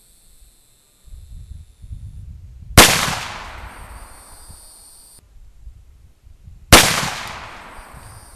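Two shots from a black powder percussion revolver, about four seconds apart, each sharp crack trailing off in a long echoing decay.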